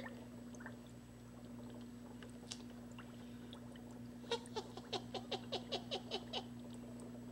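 Bottlenose dolphin chattering: a rapid run of clicky chirps, about five a second, each dropping in pitch, starting about four seconds in and lasting about two seconds. A low steady hum runs underneath.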